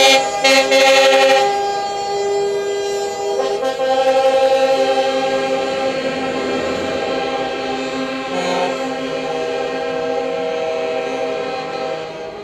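Multi-tone truck air horns sounding together in held chords, the pitches shifting every second or two, after a brief harsh blast at the start.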